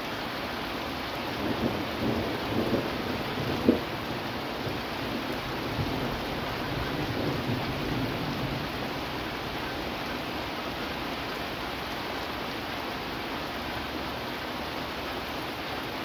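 Steady rain falling in a thunderstorm, with thunder rumbling through the first half and a sharp peak nearly four seconds in.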